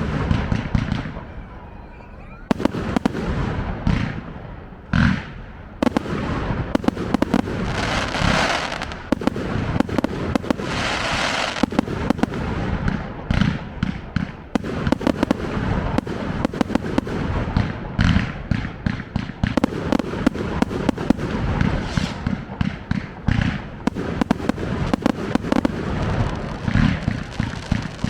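Fireworks display: a rapid, near-continuous barrage of sharp bangs from bursting aerial shells, with spells of hissing crackle about eight and eleven seconds in.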